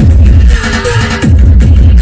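Loud electronic music with deep bass notes that slide downward again and again.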